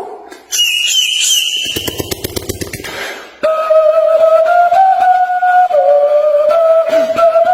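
Whistle-like sound effect: a short high tone with a few clicks, then, about three and a half seconds in, a long held lower tone that wavers slightly in pitch.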